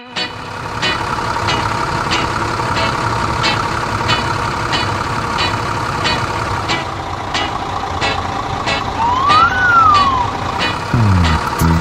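Cartoon construction-vehicle engine sound effect running steadily, with a regular clicking about one and a half times a second. A short whistle rises and falls about nine seconds in, and falling tones come near the end.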